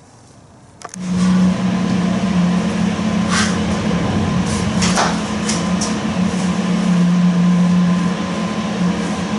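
A welding machine switched on with a click about a second in, then humming steadily with a few sharp clicks, ready to tack-weld the brackets to the sprocket.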